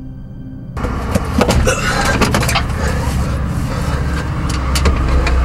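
Steady droning music cuts off under a second in, giving way to outdoor road traffic noise: a steady low rumble with scattered clicks and knocks.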